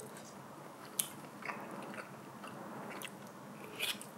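Quiet eating sounds from a mouthful of cheese fried rice: soft biting and chewing with a few light clicks.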